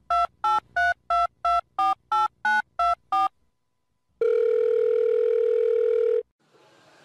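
Telephone keypad tones: ten short two-note beeps, about three a second, dialling a phone number. After a pause comes one steady ringing tone of about two seconds.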